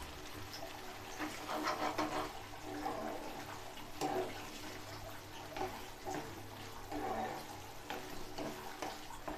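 Rice simmering in sugar syrup in a pan, the syrup bubbling steadily with many small pops.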